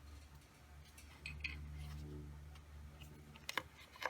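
A few light clicks and clinks of small metal carburetor parts being handled, the sharpest two near the end, over a faint low hum.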